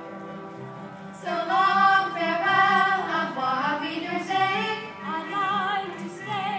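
A stage musical number: instrumental accompaniment, then a high singing voice comes in about a second in, with vibrato on its held notes.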